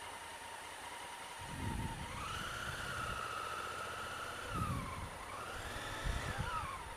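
Honda Africa Twin CRF1000L parallel-twin motorcycle engine pulling away from a stop: its pitch rises as it accelerates, dips briefly at a gear change, rises again, then falls as the throttle closes near the end. Low rumbles of wind buffeting on the helmet come with it.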